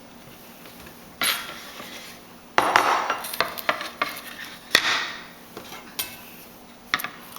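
Knife cutting into a dragon fruit, with sharp clinks and knocks of metal against a dish: a cluster of them a few seconds in and single ones near the end.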